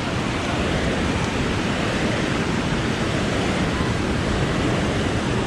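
Steady wash of ocean surf on the beach, with wind buffeting the microphone.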